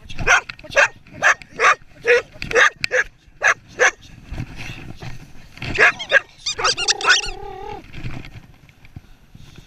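Search and rescue dog barking repeatedly at close range, about two barks a second, as its trained bark alert at a found casualty. The barking thins out after about four seconds, with a short wavering whine about seven seconds in.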